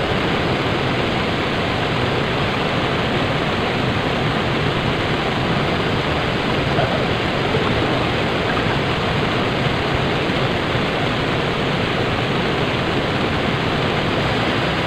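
Steady, unbroken rush of flowing river water.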